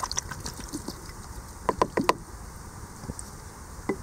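Water sloshing in a plastic gold pan, with a few sharp knocks and taps against the plastic: a quick cluster of four about halfway through and one more near the end.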